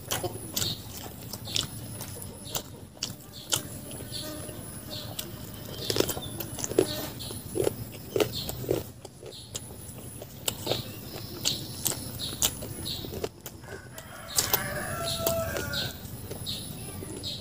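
Close-up mouth sounds of a man eating chicken by hand: repeated wet chewing, lip-smacking and sucking at meat on the bone. A bird calls briefly a little before the end.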